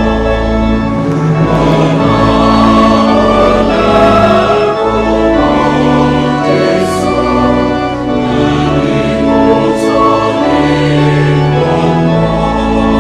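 Gospel music with a choir singing sustained chords over a strong bass line.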